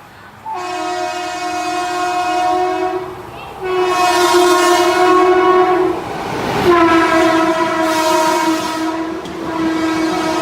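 Train horn sound effect: four long, steady horn blasts, each lasting two to three seconds, with short breaks between them.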